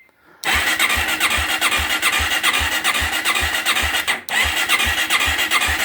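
An ATV's electric starter cranking the engine, with about four even compression pulses a second and a short break just after four seconds. The engine does not fire: it is a no-start despite spark, as the owner has checked.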